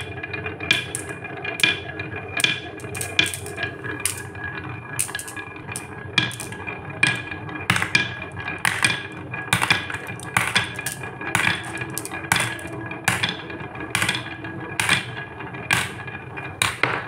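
Glass marbles rolling steadily along a wavy grooved wooden marble-run slope, with repeated sharp clacks, about one to two a second, as marbles knock against each other and drop into a plastic toy truck's bed.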